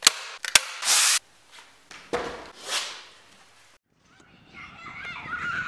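Hand staple gun firing twice, about half a second apart, driving staples through canvas into a wooden stretcher frame, followed by a few softer scraping and rustling noises. About four seconds in, an outdoor background with chirping takes over.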